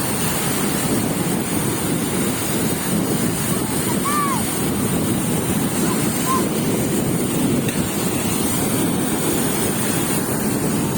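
Steady wash of sea surf, with wind buffeting the microphone. A faint short call rises and falls about four seconds in.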